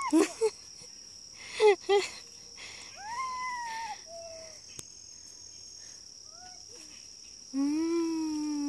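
Voices calling out in drawn-out shouts: a high child-like call about three seconds in and a long held call near the end, the loudest sound. Underneath, crickets keep up a steady high-pitched trill.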